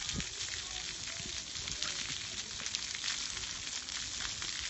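Splash pad water jets spraying onto wet concrete: a steady, even hiss.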